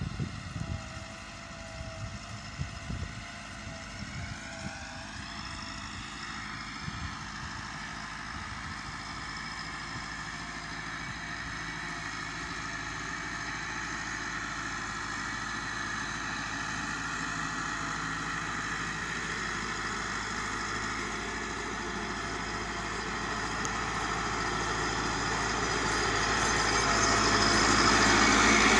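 Massey Ferguson 385 tractor's four-cylinder diesel engine running steadily while pulling a laser land leveller, growing louder as the tractor comes closer. Its pitch rises and falls briefly about five seconds in, and a few knocks sound in the first four seconds.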